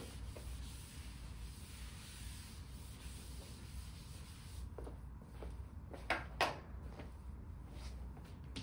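Low steady room hum, with a handful of short knocks and scrapes between about five and six and a half seconds in, the two loudest close together near the end of that stretch, from writing on a board.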